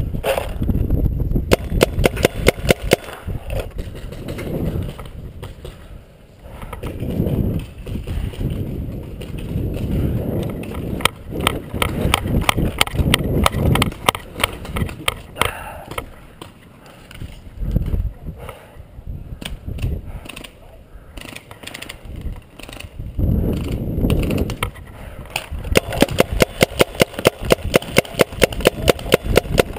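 Paintball markers firing in rapid strings of shots several times, with a low rumble between the strings.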